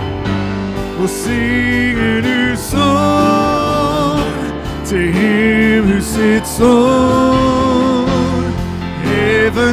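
Live worship band: voices singing long, held melody lines with vibrato over acoustic guitar and keyboard.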